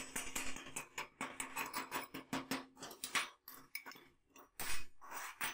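Metal scraping and clicking as a hand tool works against a homemade clamp made from a caulking-gun trigger mechanism and a bicycle chainring, in quick irregular strokes. The strokes thin out past the middle, and the loudest scrape comes near the end.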